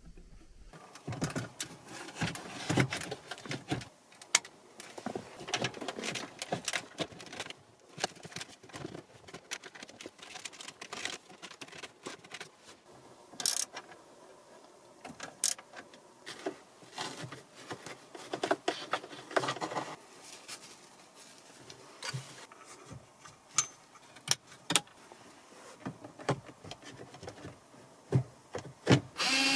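Irregular clicks, knocks and light rattles of hands working in a car dashboard: a radio head unit and plastic trim being handled and a stubby bit screwdriver turning screws.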